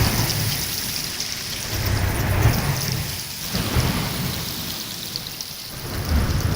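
Rain hissing steadily with low rumbles of thunder swelling and fading about every two to three seconds, a storm sound effect.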